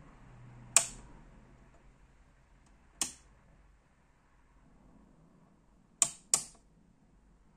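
Rotary selector switches on a valve tester clicking as they are turned by hand from one position to the next: four sharp clicks, about a second in, at three seconds, and two in quick succession near the end.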